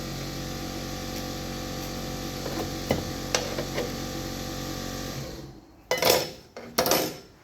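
Steady hum of a running electric motor with a few light knocks. The hum cuts off about five seconds in, followed by two brief noisy scrapes.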